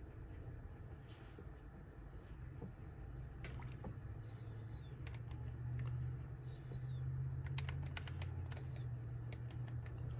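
Scattered light clicks and taps, and a short high chirp about every two seconds, over a low steady hum.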